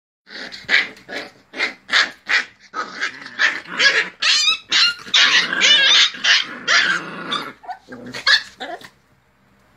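Two dogs fighting: a rapid, loud run of growls and short barks that stops near the end.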